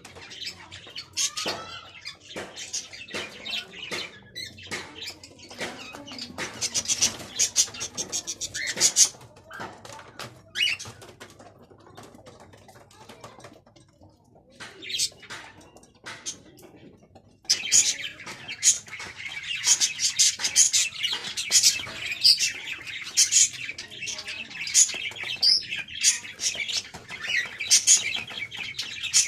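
Caged cockatiels and budgies chirping and chattering in many short, high calls. The chatter becomes suddenly louder and denser about 17 seconds in.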